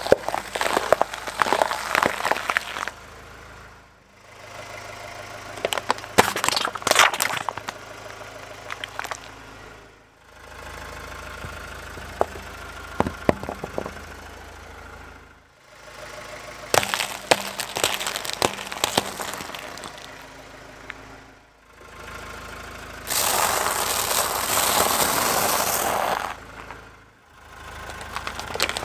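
A car tyre rolling over and crushing objects on concrete in a string of short takes, starting with bell peppers: bursts of sharp cracking and crunching over a car engine idling. Near the end, a loud steady rushing noise lasts about three seconds.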